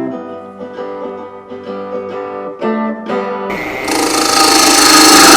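Acoustic guitar strumming the closing chords of a song. About three and a half seconds in it stops, and a loud, steady noise from a woodturning lathe comes in, growing louder over a second or so.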